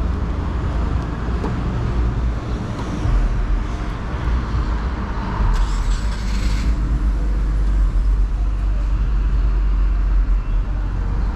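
Suzuki GSX-S1000 motorcycle being ridden, a steady loud low rumble with no shift pops or crackles. A brief rush of hiss comes about halfway through.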